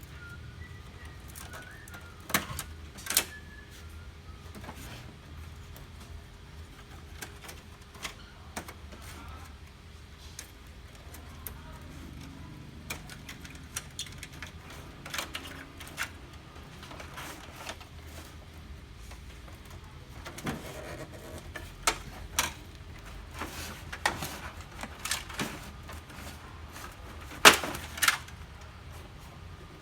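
Scattered sharp clicks and knocks of plastic parts and screws being handled while an HP LaserJet MFP 135a laser printer is taken apart, over a low steady hum. There are a pair of clicks early, a few faint taps, then a busier run of clicks near the end, the loudest just before it finishes.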